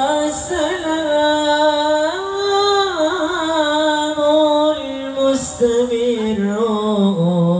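A man singing a sholawat line in Arabic solo through a microphone, holding long ornamented notes that slide between pitches and settling on a lower held note near the end.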